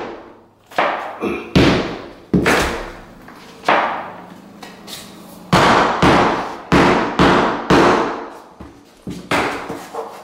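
A hardwood floor board being knocked into place: about a dozen sharp knocks at an uneven pace, each with a short ringing tail, with a pause of a second or so midway.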